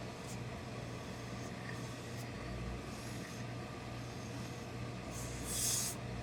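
Steady low hum under faint handling clicks, with a short sharp hiss about five and a half seconds in.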